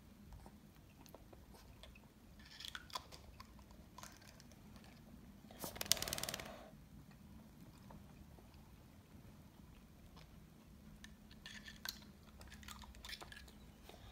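Chihuahua puppy snapping its jaws at soap bubbles: faint clusters of small clicks and chomps from its teeth, twice. A louder, breathy rush lasting under a second comes about six seconds in.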